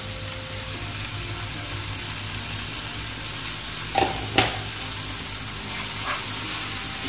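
Tomato-onion masala sizzling in a frying pan while a wooden spatula stirs spice powder into it. Two sharp taps come about four seconds in.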